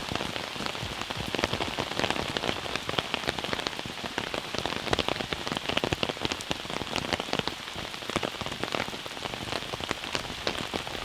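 Rain falling steadily, the individual drops heard as a dense, continuous run of small ticks on a nearby surface.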